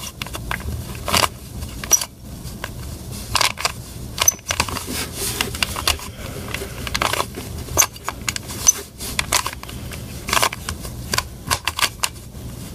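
A Rubik's cube being turned through a solving algorithm: irregular plastic clicks and clacks as its layers are twisted one after another.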